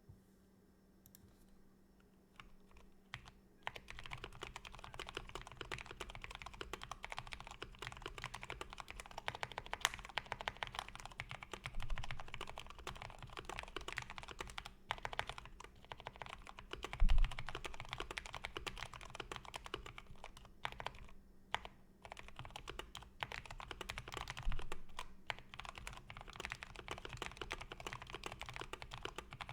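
Typing on a Keychron C2 mechanical keyboard with lubed Gateron Brown tactile switches, tape- and foam-modded: a fast, continuous run of key presses that starts about three and a half seconds in. Now and then a louder, deeper knock stands out from the typing.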